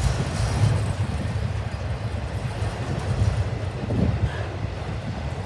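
Freight train cars rolling past on the rails with a steady low rumble.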